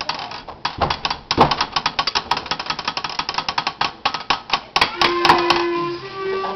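Rapid, irregular clicking and clattering. About five seconds in, a wind instrument starts holding a steady note, then moves to a slightly higher one.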